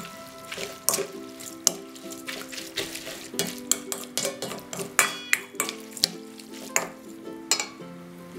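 A spoon stirring and tossing wet sliced beef tripe and seasonings in a stainless steel bowl: irregular clinks and wet scrapes against the metal, several a second. Soft background music with held notes runs underneath.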